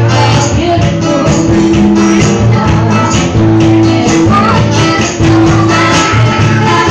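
Loud live band music: a man singing into a microphone while strumming an acoustic guitar, over held low notes and a steady beat.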